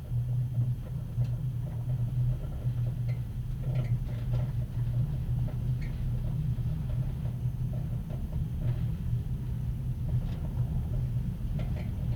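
Inside a closed compartment of a passenger railway carriage slowly gathering speed: the axle-driven generator and running gear give a low steady hum and rumble, with scattered light knocks and rattles from the carriage.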